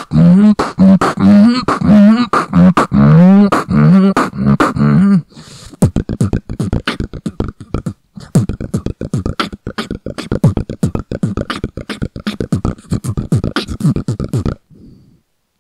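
Beatboxing into a handheld microphone. For about five seconds there are pulsed, pitched bass hums in a rhythm, then a long fast run of clicking mouth and lip sounds, which stops shortly before the end.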